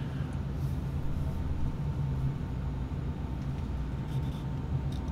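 Steady low background rumble, with a few faint clicks from handling an arrow and a slip of paper.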